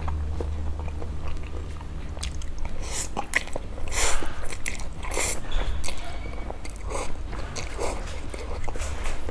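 Close-up eating sounds of instant dry noodles taken with chopsticks: a run of short, noisy slurps in the middle, then quieter chewing and mouth sounds, over a steady low hum.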